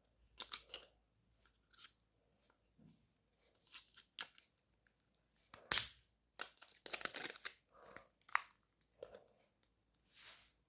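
Clicks, taps and plastic rustling from an old ZTE mobile phone and its packaging being handled, in scattered short bursts. The loudest is a sharp click a little past halfway, followed by a quick run of clicks and rustling.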